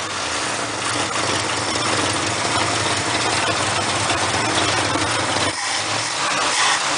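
1965 Mercury pickup's 352 V8 running steadily with its air cleaner off, a steady hiss from the open carburettor over the engine note. The sound dips briefly about five and a half seconds in.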